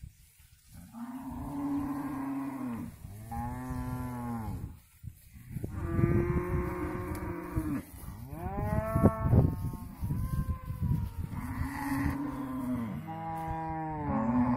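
Cattle mooing, one long moo after another with short breaks between, several of them falling in pitch at the end.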